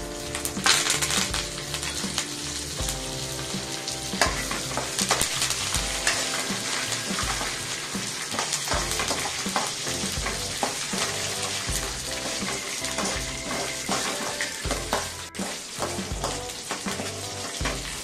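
Garlic, green chillies and curry leaves sizzling in hot oil with frying dal and mustard seeds in a metal kadai. A metal spatula stirs through them, scraping and clicking against the pan.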